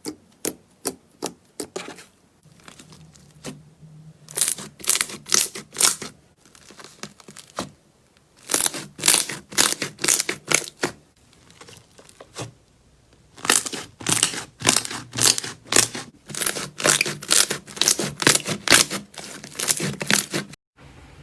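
Slime being squeezed and pressed by hand, giving runs of sticky crackling pops and clicks in bursts of a second or more, with short pauses between.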